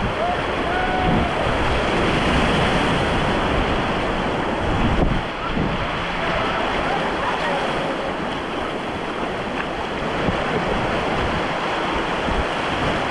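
River water rushing steadily through rapids, with wind buffeting the microphone.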